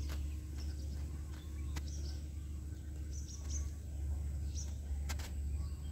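Small birds chirping in short calls, about five times, over a steady low rumble, with a few sharp clicks.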